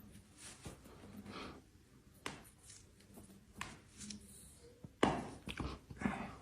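Hands handling an animal during a chiropractic adjustment: scattered soft rustles and light clicks, with a louder knock about five seconds in and another shortly after.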